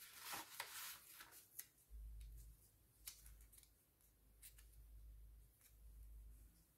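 Faint paper handling: a sticker being peeled from its backing and pressed onto a planner page, a brief rustle at the start and then scattered soft ticks, over a low hum that comes in about two seconds in.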